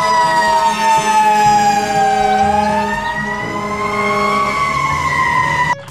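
Fire engine siren wailing: one slow sweep that falls in pitch, climbs back up, and cuts off suddenly near the end.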